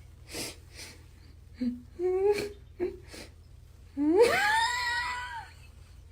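A pet dog or cat crying: two soft breathy huffs, a few short whimpering cries, then about four seconds in one long wail that rises steeply in pitch and holds for over a second.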